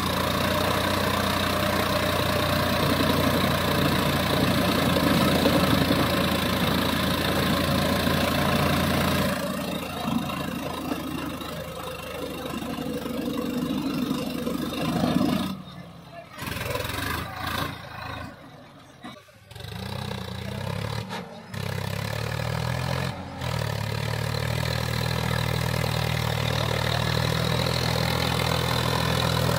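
Swaraj 963 FE tractor's three-cylinder diesel engine working hard as the four-wheel-drive tractor struggles through loose sand. The sound drops and breaks off a little past halfway, then the engine runs on at a steady, even note.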